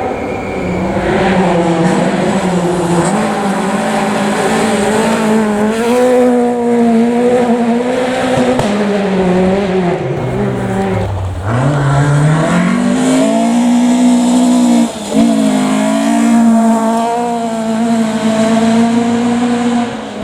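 Rally car engine running hard, its revs rising and falling through the gears. About ten seconds in the revs drop steeply, then climb again, with a brief break in the note a few seconds later.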